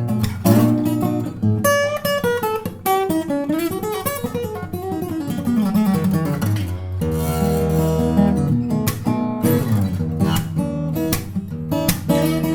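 Bellame W-180 acoustic guitar being played: strummed chords mixed with picked single-note runs that climb and fall, then a full chord ringing out about seven seconds in, followed by more strumming.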